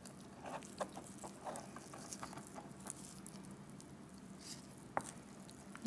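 Faint, scattered small clicks and wet ticks of a knife cutting and fingers pulling raw rabbit meat off the leg bone, with one sharper click about five seconds in, over a faint steady hum.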